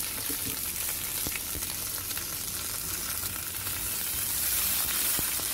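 Bean sprouts sizzling in a very hot wok as they are stir-fried with a metal spatula, with a few light clicks of the spatula against the pan. The sizzle grows a little louder near the end.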